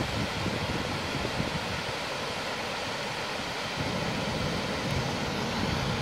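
Steady rushing of a fast-flowing stream, with gusts of wind rumbling on the microphone.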